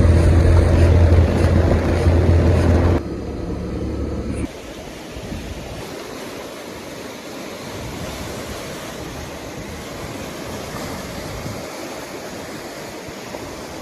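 Water falling in a steady rushing stream. For the first three seconds it is louder, with a deep rumble underneath, then it drops to an even, steady rush.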